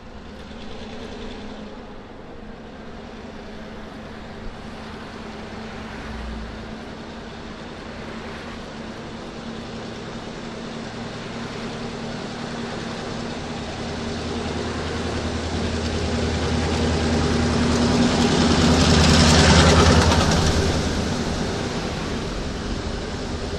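Mass Coastal 2007 diesel-electric locomotive approaching with a steady engine drone that grows louder and peaks as it passes directly below, about 19 to 20 seconds in. The sound then falls away as the gondola cars roll past behind it.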